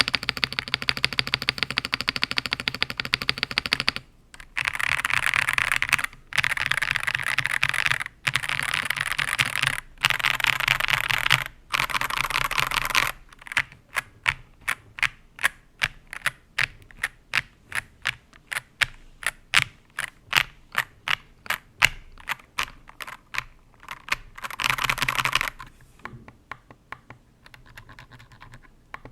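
Ajazz AK820 Pro mechanical keyboard with linear KTT Kang White switches, lubed with Krytox 205g0 and 105 oil, being typed on: fast continuous typing in bursts with short pauses for about the first half, then single keys struck one at a time at about three a second, a brief last burst of fast typing, and a few faint strokes near the end.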